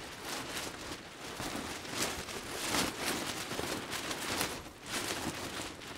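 Strong, gusty wind catching a camping tarp and tent, the fabric flapping and snapping irregularly while the wind rushes past.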